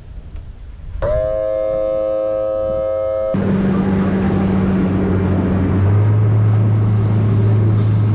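Boat outboard motor running. About a second in a steady humming tone starts at low speed, then the sound changes abruptly to the boat under way at speed, with engine drone and rushing water and wind. The engine note drops lower about two-thirds of the way through.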